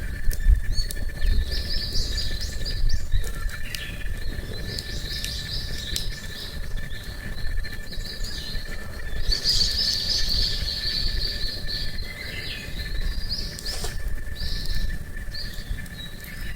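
Small birds singing in repeated short chirping phrases over a steady low outdoor rumble, with a faint steady thin tone and a few sharp clicks.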